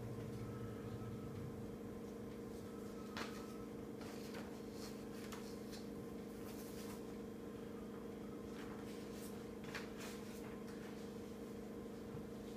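Steady low electrical or fan hum, with a handful of faint sharp clicks scattered through it, the clearest about three seconds in and near ten seconds.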